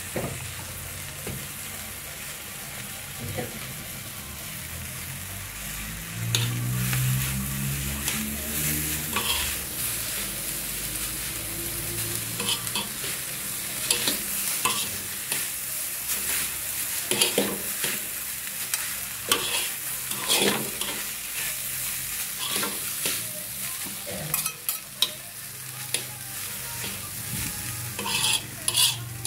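Noodles sizzling in a wok over a gas flame while tongs and a spatula toss them, scraping and clacking against the wok; the utensil strikes come often from about halfway through. A low hum, rising in pitch, runs from about six to twelve seconds in.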